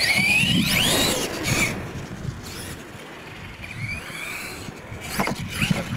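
RC monster truck's motor whining up in pitch as it accelerates across the dirt track, twice, with tyre and gravel noise underneath. A few sharp knocks near the end.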